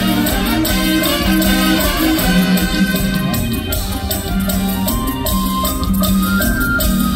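A live Thai Isan folk-pop band playing loudly through a large PA, with a steady beat of shaker-like percussion over held bass notes and a melodic line, and no lead vocal in this stretch.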